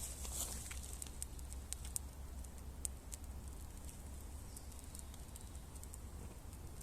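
Small campfire kindling crackling, with scattered sharp pops and snaps that thin out after the first few seconds.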